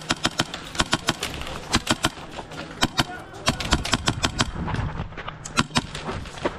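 Airsoft guns firing during close-quarters play: quick strings of sharp shots, several to a second, broken by short pauses.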